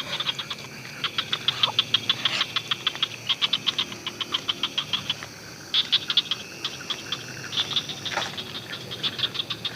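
Night chorus of calling animals, typical of frogs and insects: rapid trains of sharp clicking calls in repeated bursts, over a steady high-pitched trill.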